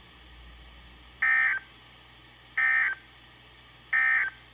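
NOAA Weather Radio EAS end-of-message signal: three short bursts of SAME digital data tones, about a second apart, closing the alert broadcast. There is a low hiss between them.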